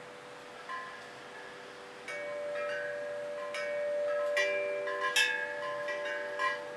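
Hanging aluminium tubes of a handmade tube chime instrument ringing, struck about seven times at uneven intervals, with bright overlapping notes that ring on and a steady lower note held from about two seconds in.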